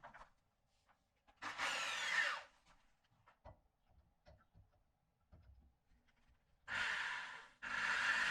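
A power tool runs in a burst of about a second, with scattered light clicks and knocks of handling. Near the end it starts again, cuts out briefly, then restarts and keeps running steadily.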